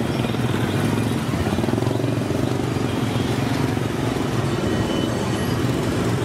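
Motorbike engines running close by over a steady hum of street traffic.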